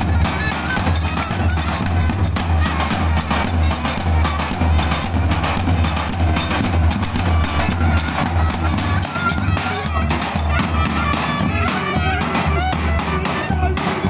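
Outdoor folk dance music from two davul bass drums and a wind instrument: the drums beat a steady, heavy rhythm under a wavering melody, with voices calling out in the crowd.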